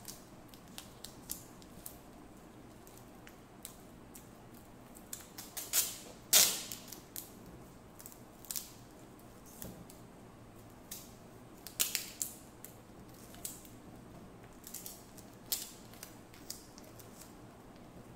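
Tesa cloth harness tape being pulled off the roll and wound around a bundle of wires: scattered short rasps and crackles at irregular intervals, the loudest about six seconds in.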